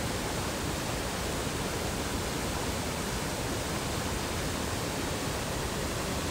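Steady rushing of a river waterfall, water pouring over a low dam into rough water below.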